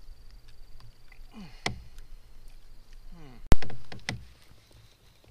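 Handling noises aboard a plastic sit-on-top fishing kayak: small clicks and rustles, two brief sweeping whirs, and one sharp, loud knock on the hull about three and a half seconds in that rings briefly.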